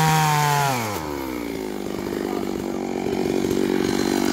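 Stihl chainsaw running at high revs, then throttled off about a second in so the engine pitch falls steeply and it settles into a steady idle.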